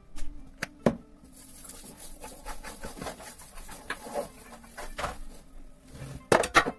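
Hands greasing a round baking pan: soft rubbing on the pan's surface with scattered light taps and clicks, then a few loud knocks near the end as the pan is handled.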